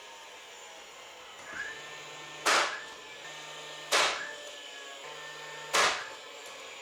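Four loud, sharp bangs about a second and a half apart, each dying away quickly, over a faint steady hum.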